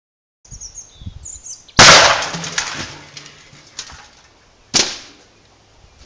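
Two loud bangs about three seconds apart as a car airbag's inflator fires inside a microwave oven and blows it apart; the first bang is the louder, with a long decaying tail and a few smaller clatters of debris after it.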